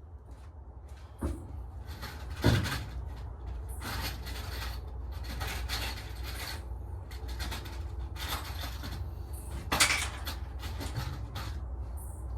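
Handling and knocking sounds: sharp knocks, the loudest about two and a half seconds in and again about ten seconds in, with short bursts of rustling or scraping between them over a steady low hum.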